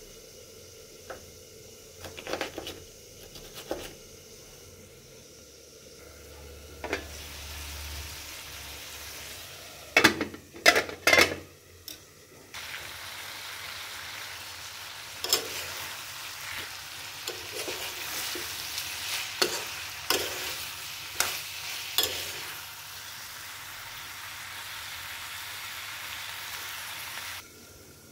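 Dried meat and vegetables frying in a pan: a steady sizzle, with a metal spoon stirring and clinking against the pan. The first few seconds are quieter, with a few light clicks, and there is a burst of loud clatters about ten seconds in; the sizzle cuts off just before the end.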